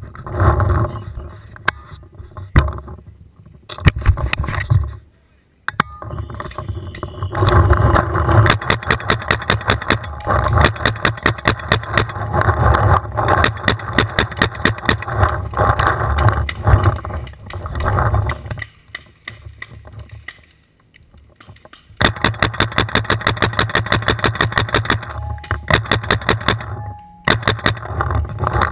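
Paintball markers firing in rapid strings of shots, about five a second, with two lulls, over the rustle of a player moving.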